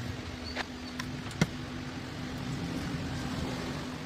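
Two short sharp clicks, the second louder, as RCA cable plugs are pushed into the jacks on the back of a subwoofer, over a steady low hum and background noise.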